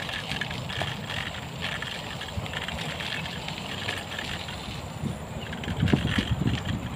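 Bicycle riding along a gravel path: a steady low rumble of tyres on the gravel with wind buffeting the microphone, the wind gusting louder near the end.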